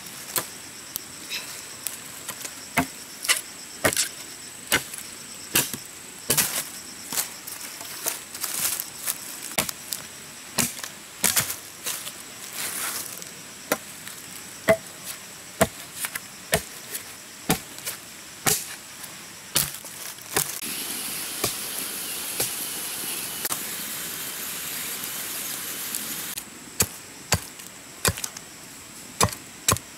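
Machete chopping into a pole of green wood, dozens of sharp strikes at an uneven pace, one or two a second. For several seconds past the middle the strikes stop and a steady high hiss takes their place. A thin, steady high whine runs underneath.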